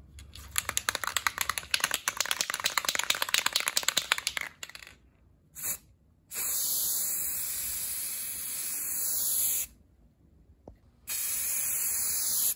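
Aerosol spray-paint can shaken hard for about four seconds, its mixing ball rattling in quick clicks. Then a short puff and two long, steady spray hisses as paint is sprayed onto a steel pipe wrench.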